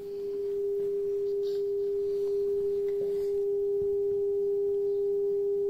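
Steady 400 Hz test tone from a loudspeaker driven by a low-frequency signal generator, with a faint overtone an octave above. It is the reference sound for measuring how much a sheet of polystyrene attenuates it. A few faint handling ticks come from the sheet being positioned.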